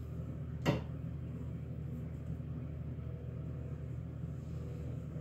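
A single sharp snip of scissors cutting hair about a second in, over a steady low hum.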